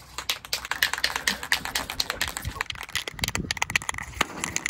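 Aerosol can of Rust-Oleum Appliance epoxy spray paint being shaken hard, its mixing ball rattling inside in a quick, steady run of sharp clicks.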